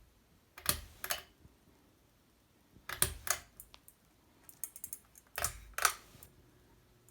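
Pull-chain switch on a For Living Nordica ceiling fan clicking three times, each pull giving a pair of sharp clicks. A low steady motor hum starts shortly after the last pull.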